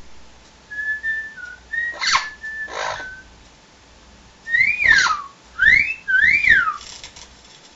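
Blue-fronted amazon parrot whistling: a few short level whistled notes broken by two harsh squawks, then three whistles that rise and fall in pitch.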